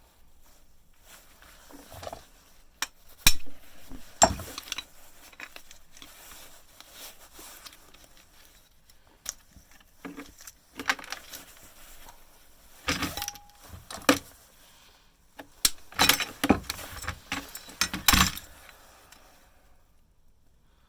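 Irregular clinks, knocks and clatters of metal as the stripped bread maker's electric motor parts (its steel stator with copper windings) are turned over and handled, with the loudest clusters of knocks near the middle and towards the end.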